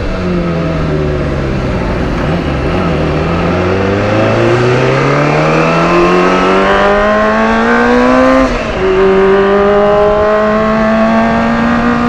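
Kawasaki ZX-25R's four-cylinder engine running under way through an aftermarket 'prekjo' exhaust. The note falls briefly, then rises steadily as the bike accelerates. About eight and a half seconds in, a gear change drops the pitch, and it climbs slowly again.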